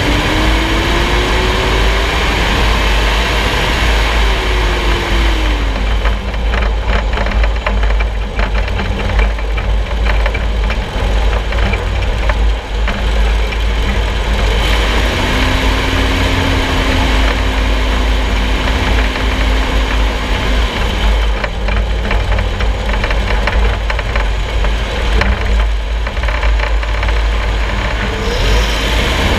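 Front suspension and steering of a solid-front-axle four-wheel-drive heard from underneath while driving: a loud low road rumble with engine or drivetrain tones that rise, fall and hold. Two long stretches of rapid knocking and rattling, starting about six seconds in and again about twenty seconds in, are the suspension noise being chased.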